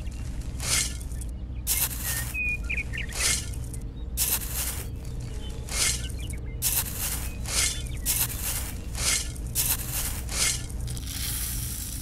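Small grains scooped and tipped into a plastic toy trailer in short rasping pours, about one a second, over a steady low hum from a small motor. Near the end, grain streams from the model thresher's chute in one continuous hiss.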